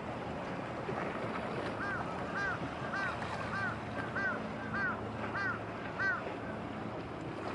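Steady wind and water noise on the microphone over a faint low hum. From about two to six seconds in, a bird calls about eight times in a row, each call short and rising then falling, at an even pace.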